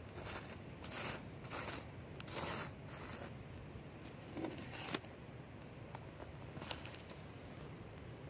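Hands scraping and pressing soil around a freshly planted tomato seedling: a run of short gritty scrapes in the first three seconds, then a sharp click about five seconds in and a few faint ticks.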